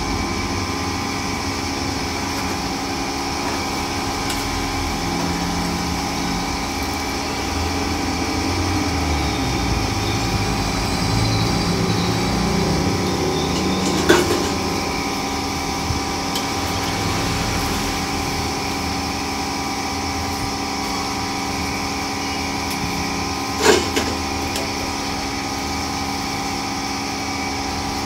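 Pork pieces deep-frying in a wok of bubbling oil, under a steady mechanical hum with several held tones. Two sharp metal clanks, one a little past halfway and one a few seconds before the end.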